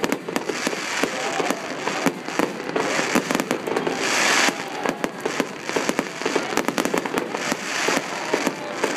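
Fireworks display: a steady barrage of bangs and crackles, with a denser burst of crackling about four seconds in.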